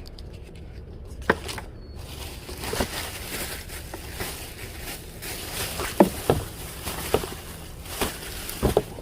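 Clothes and bags being handled and rustled, a steady rustle with several short knocks and clicks scattered through it.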